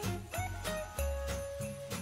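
A Christmas tune with jingle bells shaking on the beat, played by an animated Christmas village swing carousel as it turns.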